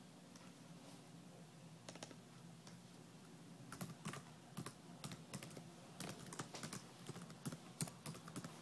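Typing on a touchscreen keyboard: a few separate taps at first, then a quick irregular run of clicks from about four seconds in.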